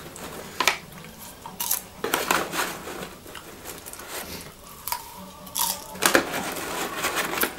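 Paper popcorn bag rustling and crinkling in several separate bursts as a hand digs in for handfuls of popcorn, mixed with the crunch of eating it.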